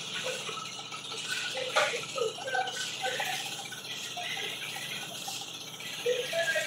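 Hand hoes and shovels digging and scraping damp soil and stones, a steady scraping with a sharp knock about two seconds in.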